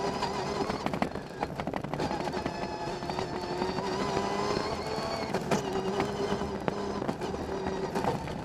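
Rally car engine running hard, heard from inside the stripped, caged cabin, its pitch climbing slowly between several brief breaks at gear changes. Sharp clicks and knocks of loose stones hitting the car come through over the engine.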